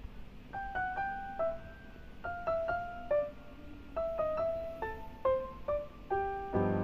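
Background music: a keyboard melody of single held notes begins about half a second in, and fuller chords with a bass line come in near the end.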